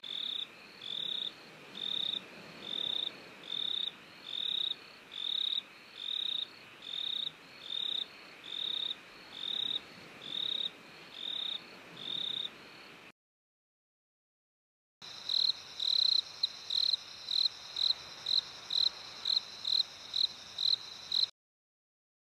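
Two recordings of insects chirping, each a steady series of short, high chirps over a faint hiss: first a slower run of about one chirp a second, then, after a short break of silence, a faster run of about two chirps a second.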